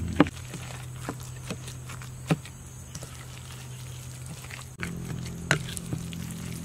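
Hands squishing and slapping a wet mixture of raw minced pork and grated vegetables in a stainless steel bowl, with a few sharp irregular slaps over a steady low hum.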